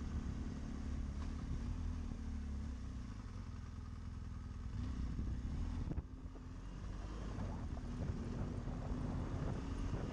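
BMW GS adventure motorcycle's engine running steadily at a moderate road speed, with a low rumble and wind and road noise over the microphone. The sound drops briefly about six seconds in, then picks up again.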